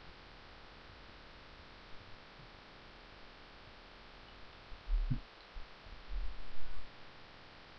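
Steady low hum and hiss from a recording microphone, with a few low thumps and a short low rumble about five to seven seconds in.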